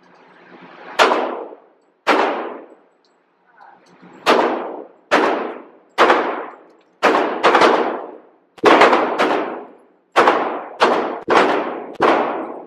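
Gunshots at an indoor shooting range: about a dozen shots fired at an uneven pace, some in quick pairs, each followed by a short reverberant tail off the range walls.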